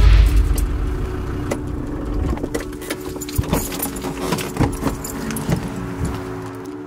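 Land Rover Defender heard from inside the cab as it rolls up to a fuel pump: a low engine and road rumble, loudest at the start, fades away. A run of light clicks and rattles follows as the truck comes to a stop.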